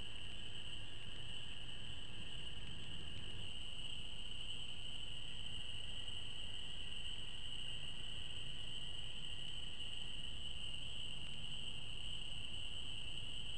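Steady night chorus of small calling animals, heard as a continuous high-pitched trill that does not let up, with a faint low background hiss.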